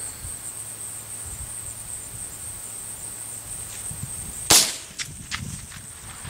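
A Ruger 10/22 .22LR rifle fires one sharp shot about four and a half seconds in, followed by a few faint clicks. Insects chirr steadily in the background.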